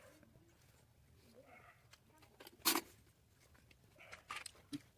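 Faint scattered clicks and rustles of small handling noises, with one sharp click about two and a half seconds in and a short cluster of clicks near the end.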